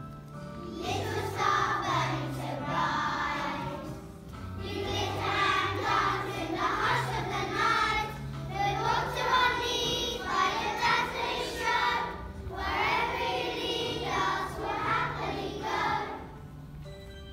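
A group of young children singing a song together over recorded backing music, in phrases of about four seconds each. The singing stops about a second before the end, leaving the backing music playing.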